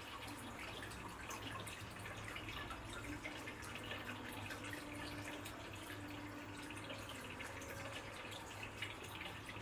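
Water dripping and lightly splashing, many small scattered drops, over a steady low hum.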